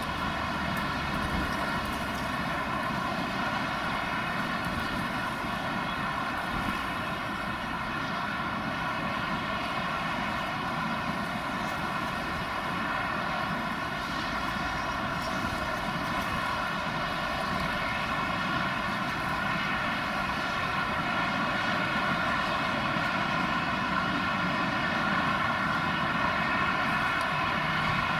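An Airbus A380's four Rolls-Royce Trent 900 turbofans at takeoff thrust during the takeoff roll. The jet roar is steady with a buzzing drone of evenly spaced tones, growing slightly louder near the end.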